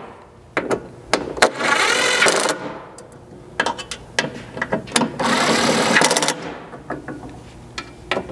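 Cordless driver with a 4 mm hex bit tightening M6 button-head bolts into a tailgate frame. It runs in two bursts of a second or two each, with a few light clicks between them.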